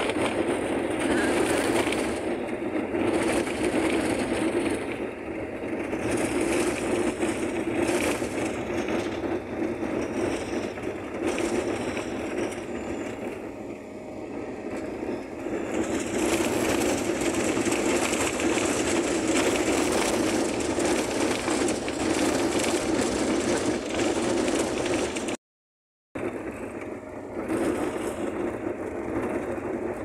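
Volkswagen Kombi van driving along a sandy dirt road: steady engine and road noise, heard from inside the van. The sound cuts out completely for a moment near the end.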